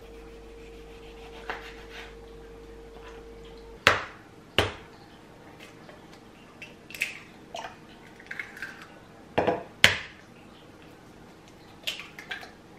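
A faint knife tick over a steady low hum, then sharp knocks as an egg is cracked against a plastic measuring cup, with smaller clicks and taps as the shell is broken open into the cup.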